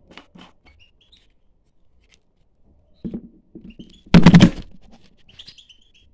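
A handheld phone camera being picked up and moved. There is a knock about three seconds in, then a loud rubbing scrape of handling on the microphone a second later. Faint short chirps from caged European goldfinches come before and after the handling.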